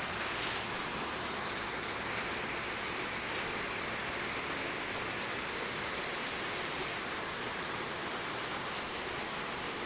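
Steady hiss of rain and floodwater running off, with a thin, steady high-pitched drone above it.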